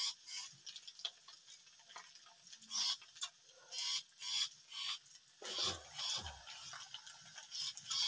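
Wood fire crackling under a wok of water being heated, with scattered sharp pops and short hisses. A dull low thump comes about five and a half seconds in.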